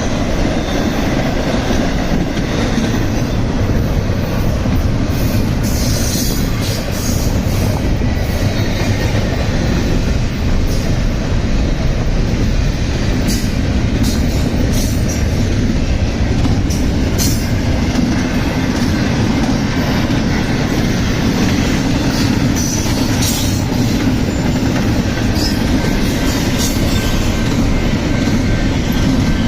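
CSX intermodal freight train's cars rolling past close by: a steady, loud rumble of wheels on rail. Short, sharp clicks from the wheels come now and then.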